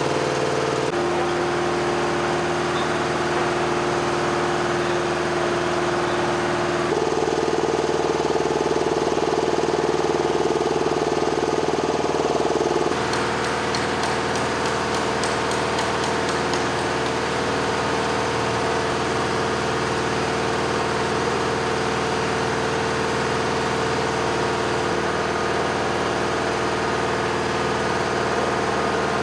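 Steady engine-like hum of running machinery whose pitch shifts abruptly three times, about a second, seven seconds and thirteen seconds in. A light rapid ticking runs for a few seconds after the third shift.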